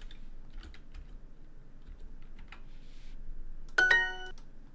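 Light clicks of typing on a computer keyboard, then about four seconds in a short bright chime of several tones: Duolingo's correct-answer sound.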